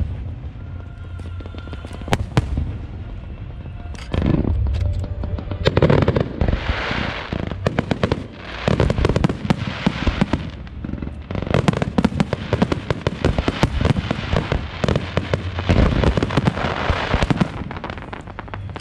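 Fireworks display going off: a dense run of sharp bangs and crackles from bursting aerial shells, with several stretches of hissing crackle.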